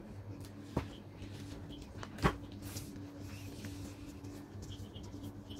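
Light clicks and rattles of coloured pencils in a plastic pencil case as a kitten paws at them, with two sharper clicks, the louder one a little past two seconds in, over a steady low hum.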